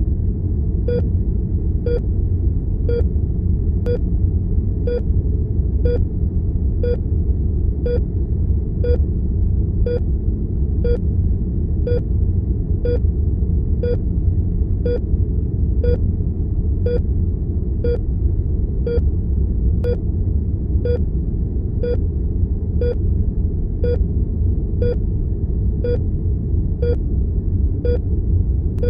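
Hospital heart monitor beeping evenly about once a second, a pulse rate of around 60 beats a minute, over a steady low rumble of room tone.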